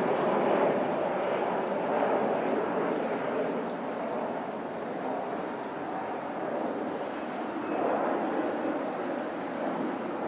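Steady low rumble of city background noise, with a small bird's short, high chip note repeated about every second and a quarter.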